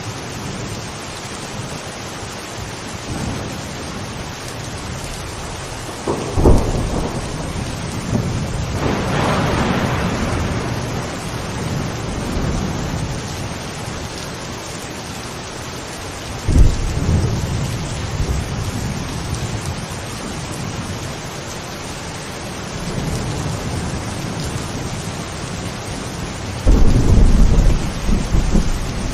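Steady heavy rain with rolls of thunder: sharp cracks that turn into low rumbles about six seconds in and again near sixteen seconds, a swell about nine seconds in, and a loud low rumble near the end.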